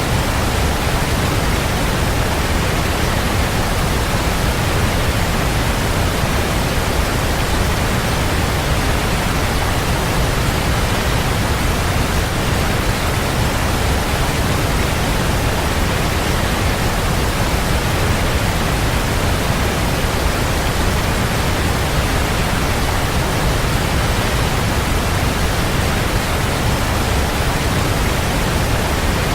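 Waterfall: water pouring and crashing in a steady, unchanging rush, heavy in the low end.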